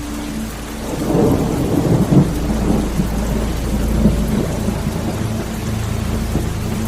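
Rain with a rumble of thunder that swells about a second in and rolls on for several seconds, over the steady low drone of a car driving on a wet motorway.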